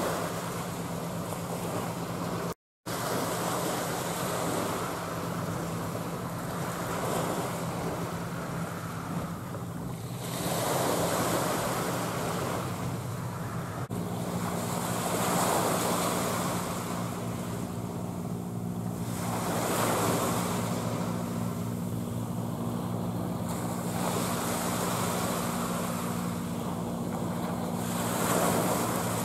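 Wind on the microphone and waves washing against the shore in slow swells every few seconds, over a steady low engine drone. The sound cuts out completely for a moment about three seconds in.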